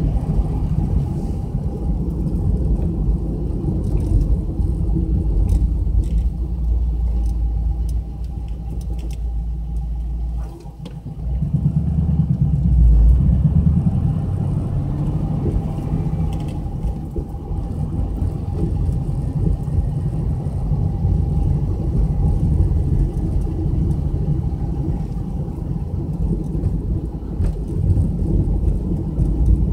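A car driving, heard from inside the cabin: a steady low rumble of engine and road noise. It dips briefly about ten seconds in, then picks back up.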